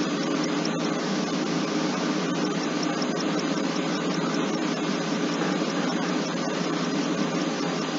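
Steady rushing noise like a fan or air-conditioner, even throughout, with no distinct events.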